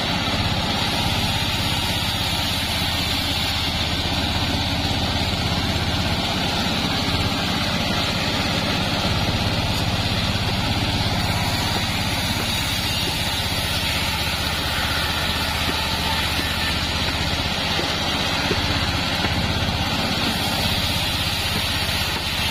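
Band sawmill running steadily, its blade sawing through sengon wood with a constant low machine hum.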